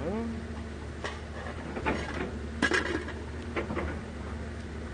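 Metal pots, bowls and utensils clinking lightly a handful of times on a metal table, with a short grunt from a man at the start and a faint steady hum underneath.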